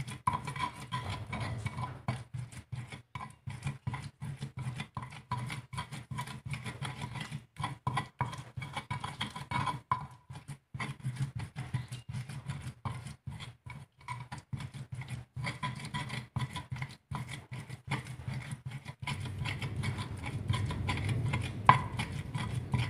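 Stone pestle (ulekan) grinding and knocking in a stone mortar (cobek), crushing chilies and spices into a wet paste. Quick, uneven strokes run on steadily, fuller in the last few seconds, with one sharper knock near the end.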